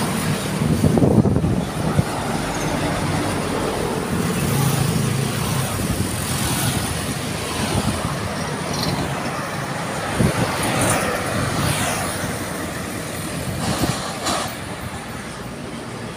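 Road traffic on a highway: trucks, cars and motorcycles passing close by, a truck's engine loudest about a second in. A couple of brief sharp knocks stand out about ten and fourteen seconds in.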